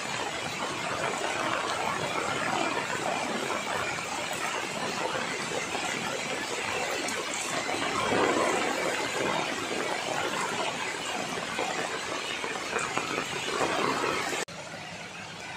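Heavy rain pouring down on dense tree foliage, a steady hiss that swells now and then. About fourteen seconds in it cuts abruptly to a quieter rain sound.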